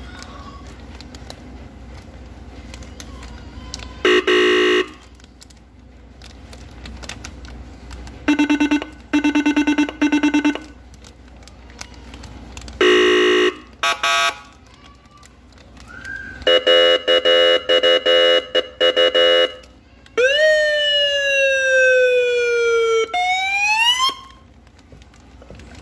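An electronic siren or alarm cycling through its tones: several short, harsh, horn-like blasts with pauses between them, then a rapid pulsing tone, then a wail that falls slowly and sweeps back up before cutting off.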